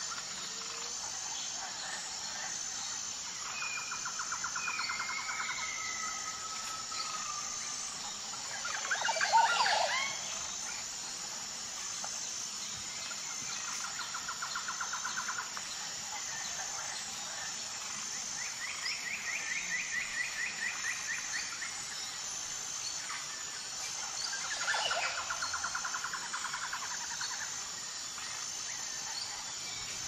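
Several birds calling over a steady, high-pitched insect drone: repeated rapid trills on a single pitch, a few short whistled glides, and one louder sweeping call about nine seconds in.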